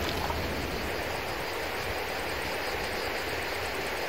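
Steady wind noise on the microphone outdoors: a low rumble with an even hiss, without distinct events.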